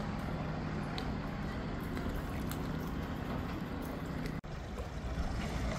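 Boat engine idling steadily in the marina, a low even hum that fades about three seconds in. The sound cuts out abruptly for an instant about four seconds in.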